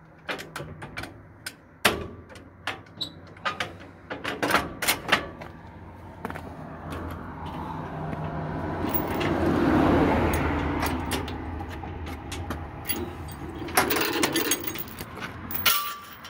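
Metal clinks and rattles of steel trailer tie-down chain being handled. Partway through, a vehicle passes on the road, swelling to its loudest about ten seconds in and then fading, and more chain rattling follows near the end.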